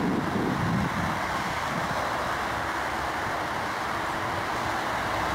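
Steady jet noise from a British Airways Boeing 747's four Rolls-Royce RB211 turbofans at takeoff thrust as the airliner climbs away; the low rumble eases slightly after the first second.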